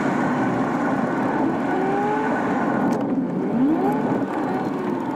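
Car driving, heard from inside an old MPV's cabin: a steady engine and road noise, with the engine's pitch rising and falling a few times as the car speeds up and slows.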